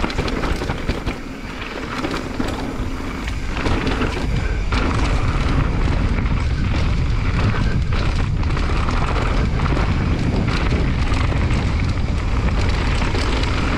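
Wind buffeting the microphone and a mountain bike's tyres rolling down a dirt trail, with rattles and knocks from the bike. The rush gets louder about four seconds in.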